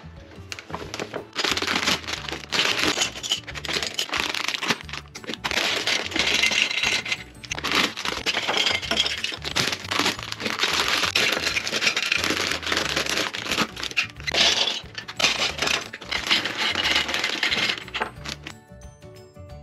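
Plastic parts bags crinkling and rustling as they are cut and torn open and the plastic marble run pieces are tipped out. The crinkling starts about a second in and stops near the end, over background music.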